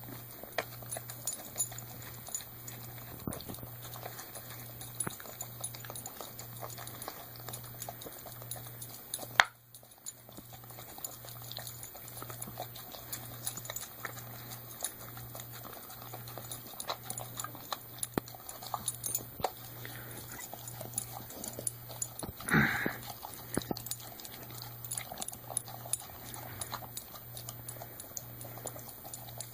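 A golden retriever licking and eating out of metal cans: many small wet clicks and clinks of tongue against can. There is a sharp knock about nine and a half seconds in, and a short louder sound a little past twenty-two seconds.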